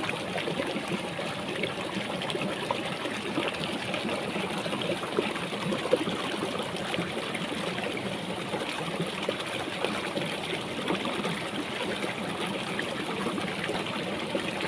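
Shallow rocky stream trickling steadily over stones.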